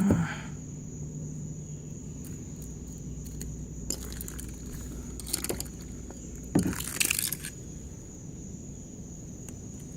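Handling of a broken-open 6-volt battery pack: scattered scrapes and clicks, then a short crunching rattle about six and a half seconds in as a piece of the battery comes loose. Crickets chirr steadily in the background.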